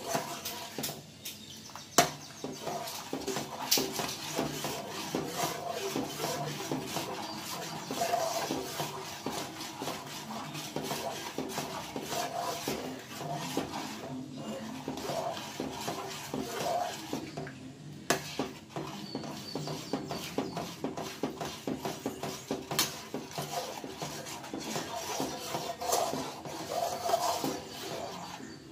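Steel slotted ladle stirring a thick milk and wheat-flour mixture in a kadai, with continuous clinking and scraping against the pan and a few sharper knocks, the first about two seconds in and another about eighteen seconds in. It is the steady stirring that keeps the thickening mixture from going lumpy.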